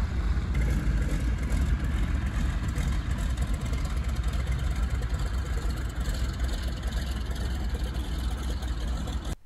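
A 1944 Grumman Goose's twin Pratt & Whitney R-985 radial engines running as the amphibian taxis, a steady low rumble.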